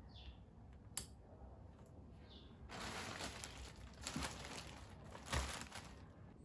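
A thin plastic courier mailer bag being picked up and handled, crinkling and rustling from about three seconds in until near the end. A single sharp click comes about a second in.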